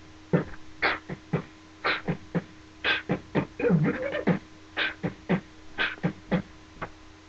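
A man beatboxing: short, sharp percussive mouth sounds in a steady beat, with a brief wavering hummed tone a little past halfway.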